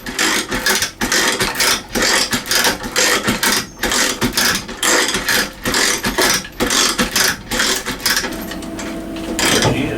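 Chain hoist ratcheting and clattering as it takes up the weight of a generator, a few sharp metallic clicks a second. About eight seconds in, a steady hum sets in.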